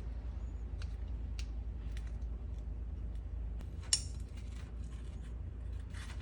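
Small metal starter parts clicking and clinking as they are handled and fitted together, with one sharp, ringing metal clink about four seconds in.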